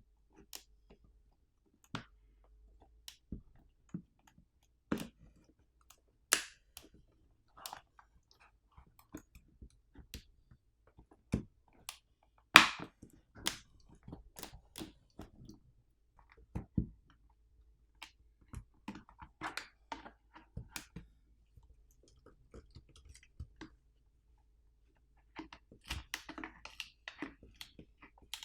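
Small plastic and metal parts of a power bank being handled and pried apart with tools: scattered clicks and knocks, the loudest about twelve seconds in, with crackling runs in the second half and the densest near the end.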